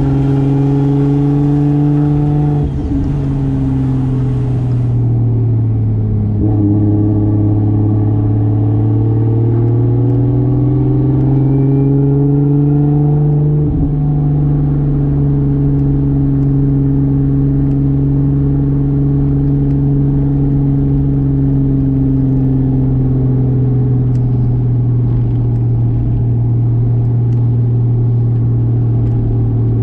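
1995 Toyota Soarer's single-turbo 2JZ straight-six driving under load. The revs fall away after about three seconds, then climb steadily. They drop sharply at a gear change about halfway through, then hold steady at cruise.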